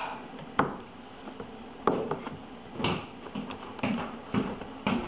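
Several sharp knocks on a tabletop, about six spread irregularly over five seconds, the loudest two in the first two seconds. They come from plastic cups and hands striking the table.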